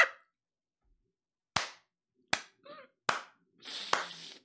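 A man clapping his hands four times, slowly, about three-quarters of a second apart, with short breathy bursts of laughter between the claps.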